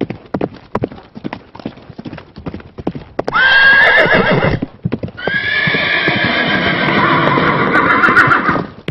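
Horse hooves clip-clopping at a steady trot, then a horse whinnying twice: a short whinny about three seconds in, and a longer, wavering one from about five seconds in almost to the end.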